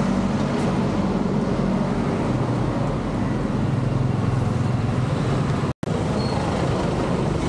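Street traffic: a steady engine hum over road noise. The sound cuts out completely for a split second about six seconds in.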